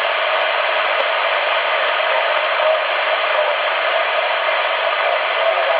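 CRT SS 9900 CB radio receiving 27.555 MHz on upper sideband, its speaker giving a steady hiss of band noise between transmissions.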